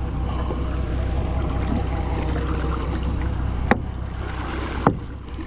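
Outboard motor idling steadily, with wind noise on the microphone. Two sharp clicks a little over a second apart in the second half.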